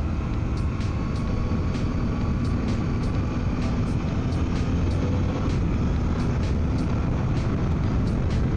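Suzuki V-Strom 800DE's parallel-twin engine pulling steadily at cruising speed under heavy wind and road rumble, heard through a microphone inside the rider's helmet. The engine note drifts slightly up and down.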